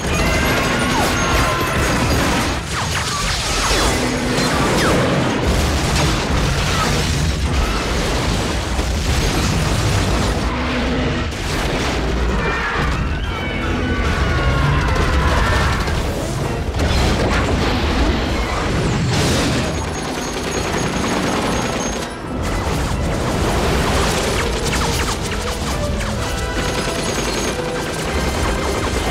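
Monster-movie soundtrack mix: heavy booms and crashes with music underneath. Long, wavering cries that bend up and down come at the start, again in the middle and near the end.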